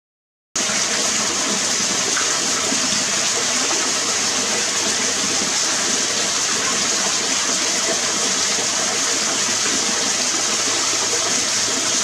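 Shallow water running over stones in a rocky stream, a steady rushing trickle that starts about half a second in.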